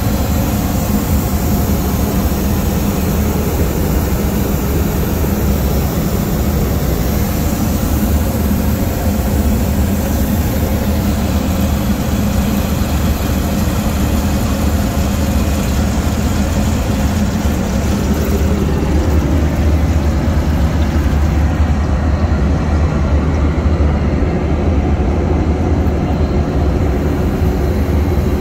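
Steady in-flight airliner cabin noise inside the lavatory: a loud, constant low drone of engines and airflow with a hiss over it. The hiss drops away about three-quarters of the way through.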